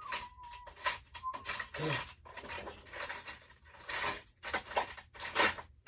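Metal hand tools and sockets clinking and rattling as they are rummaged through, a run of irregular clatters.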